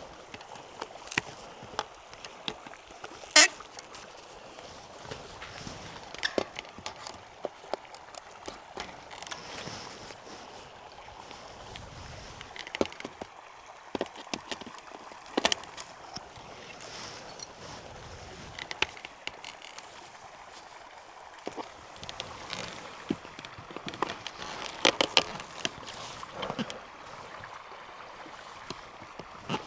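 Irregular clicks, clinks and knocks of hand-tool work on an old wire fence, with the sharpest clink about three and a half seconds in and a cluster of knocks near the end, over a faint steady outdoor noise.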